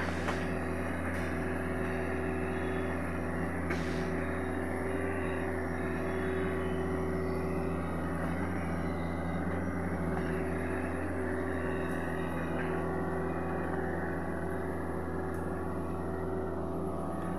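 Sany SY75C excavator's diesel engine running steadily at a constant speed, with a few short clicks or knocks over it.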